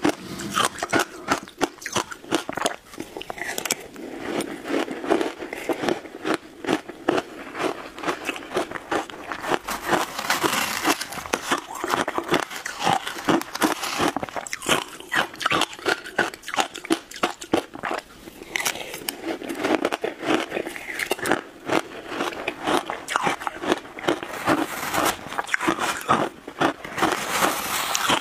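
Close-miked crunching and chewing of shaved ice topped with passion fruit pulp: a continuous run of crisp crunches, bite after bite, with a few brief pauses.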